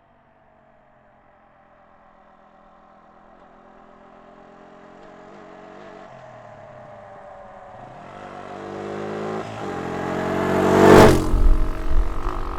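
Quad bike (ATV) engine approaching from far off, growing steadily louder over about ten seconds, loudest as it passes close about eleven seconds in, then revving unevenly as it carries on.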